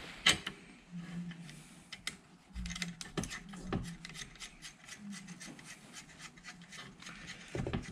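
Bolts and nuts being fitted by hand to a welded steel bracket on a steering column: light metal clicks and scraping, with a sharper click shortly in and another a little before four seconds.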